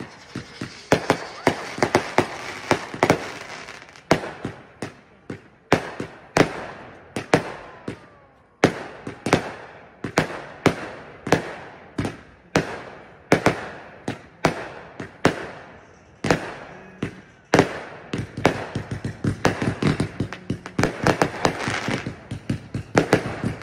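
Fireworks going off in a long run of sharp bangs, each with an echoing tail, about one or two a second. The bangs come faster and crackle more densely near the end.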